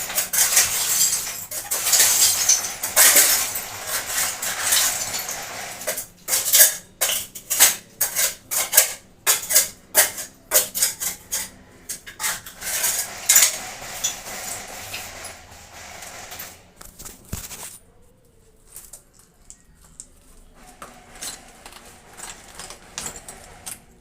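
Hand tools scraping, then clinking and tapping sharply against hard tile and cement during bathroom drain repair work; the taps thin out and fade about three-quarters of the way through.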